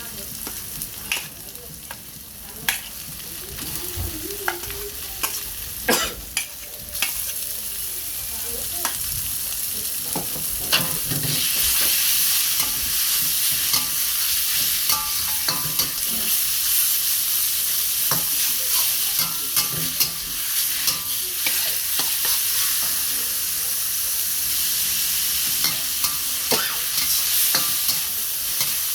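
Food frying and sizzling in a hot pan while being stirred, with frequent sharp clinks and scrapes of the utensil against the pan. The sizzle grows louder about a quarter of the way in and stays loud.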